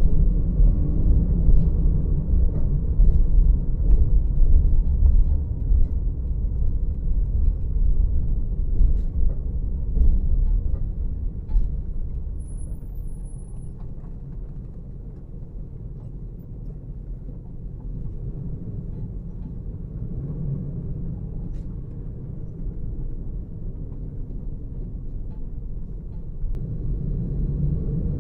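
Low, steady rumble of a car's engine and tyres on the road, heard from inside the moving car. It fades to a lower rumble about halfway through and grows louder again near the end.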